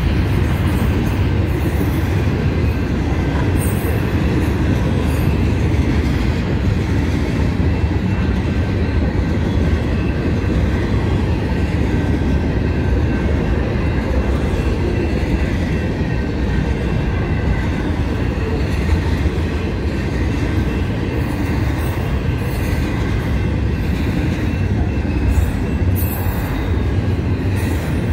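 Double-stack intermodal freight cars rolling steadily past on the rails, a continuous rumble of wheels and cars with a thin, steady high-pitched wheel squeal over it.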